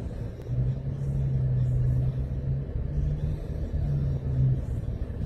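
A low, steady engine hum over a rumble, as from a motor vehicle close by. The hum breaks off briefly a couple of times and stops near the end.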